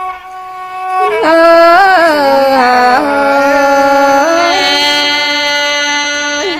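Thai folk singing (hát Thái): one voice holding long, drawn-out notes that slide and step between pitches, taking up again after a short lull in the first second.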